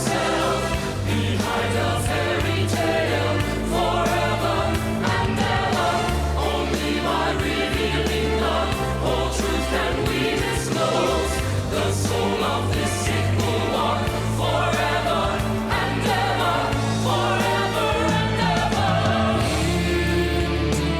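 Background music: a choir singing over a steady bass and beat.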